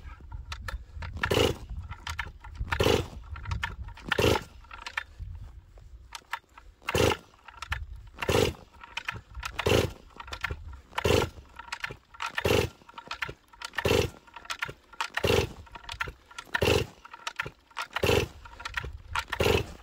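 A cold-soaked Stihl 044 Arctic high-compression chainsaw on full choke is pull-started over and over, about fourteen rope pulls at roughly one every second and a half, without catching.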